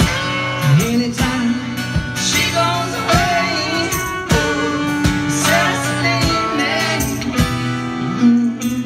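Live band playing: a strummed acoustic guitar keeping a steady beat under an electric guitar, with male and female singing.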